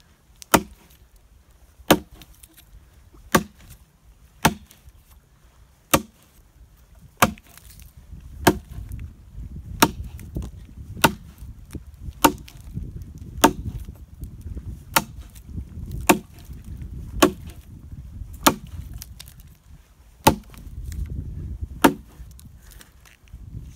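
An axe chopping into a dry log, one sharp, steady stroke about every second and a quarter, seventeen in all.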